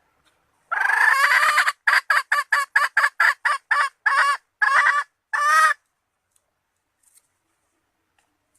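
Red junglefowl hen calling: one long note about a second in, then a run of about a dozen short, quick clucks, the last few longer and more spaced, stopping just before six seconds. It is the hen's call that summons a male.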